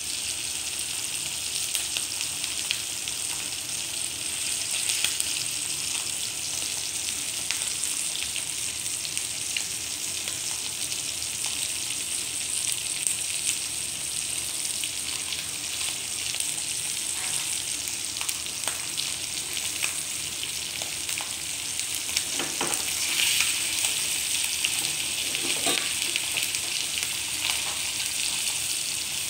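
Red snapper fillet frying in bubbling butter in a skillet: a steady sizzle with fine crackling spatters throughout, and a few louder spits about three-quarters of the way in.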